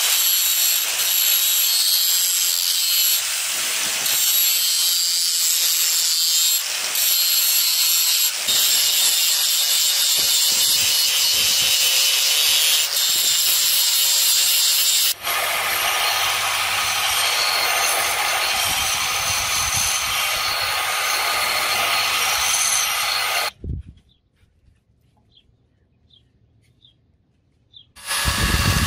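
Angle grinder with an abrasive disc grinding the edge of a steel karambit blade, a steady loud grinding noise with brief dips that changes tone and gains a low hum about halfway through. It stops about four-fifths of the way in, and after a few quiet seconds a small yellow rotary tool starts up with a steady whine near the end.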